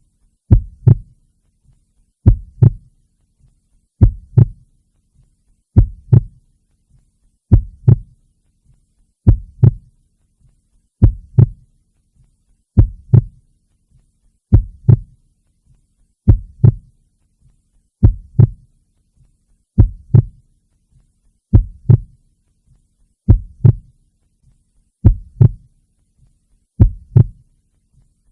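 Heartbeat, a slow, even double thump ('lub-dub') about every 1.8 seconds, deep and low.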